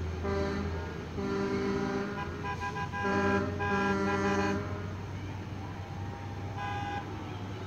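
Truck horns honking at a distance in a run of held blasts through the first half, then one short blast near the end, over a steady low hum.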